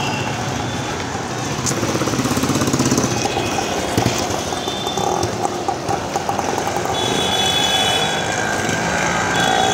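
Street traffic: vehicle engines running steadily, with a close engine's fast regular chugging about two to three seconds in and a few high tones near the end.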